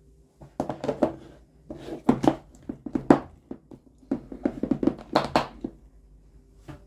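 Plastic food container with a snap-lock lid being closed: the lid set down and pressed and clipped shut, giving a run of plastic clicks, taps and knocks, loudest about two and three seconds in and again around five seconds.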